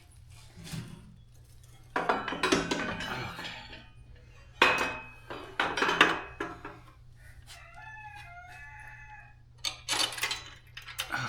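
Metal hitch parts and tools clanking and clinking in three bursts as the motorcycle hitch bracket is handled into place. Between the second and third bursts a chicken clucks briefly.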